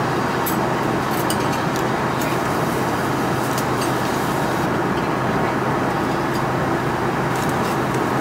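Steady roar of jet airliner cabin noise in cruise, an even noise with no change in level. A few light clicks of cutlery and tableware being handled are scattered through it.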